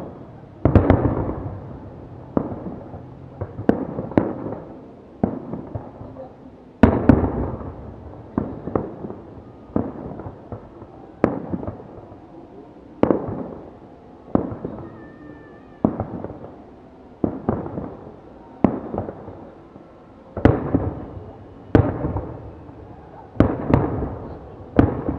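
Fireworks display with aerial shells bursting, a sharp bang every second or two, each followed by a rolling echo that fades away.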